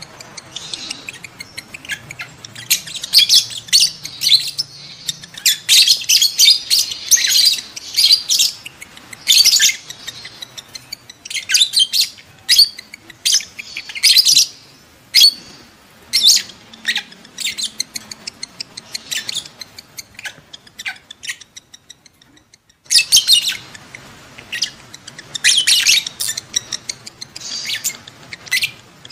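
Lovebirds chattering during mating: dense, rapid, high-pitched chirps and squeaks, broken by a short pause about twenty-two seconds in. These are the excited calls of birds in breeding condition.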